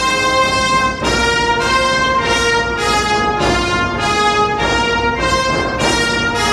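Orchestral music with brass: held chords that change about once or twice a second.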